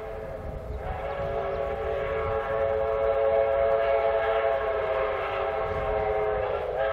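Locomotive sounding one long multi-note chime blast, held for several seconds, louder in the middle, then cut off just before the end.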